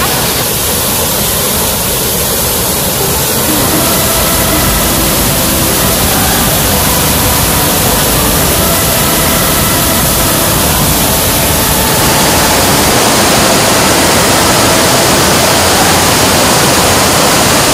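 Waterfall: a loud, steady rush of falling water, its texture shifting slightly and growing a little louder about twelve seconds in.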